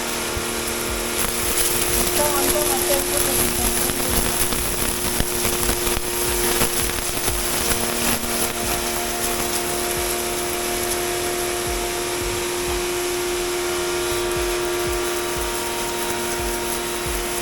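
Dylect 1900 W electric pressure washer running, a steady motor hum with the hiss of the water jet.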